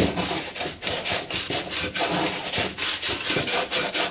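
Emery cloth strip pulled back and forth around a copper pipe in a shoeshine motion, a rasping scrub at about three strokes a second, buffing out hairline scratches in the pipe.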